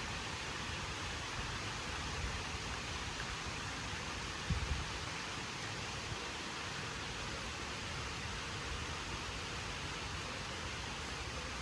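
Heavy rain falling steadily, an even hiss, with one brief low thump about four and a half seconds in.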